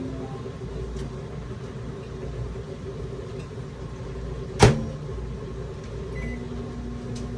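A loud clunk about halfway through, then a short electronic keypad beep and a microwave oven starting up with a steady hum, over a low background hum.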